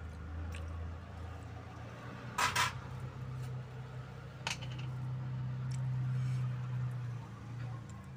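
A plate set down with two quick clacks, then a single sharper click a couple of seconds later, over a steady low hum.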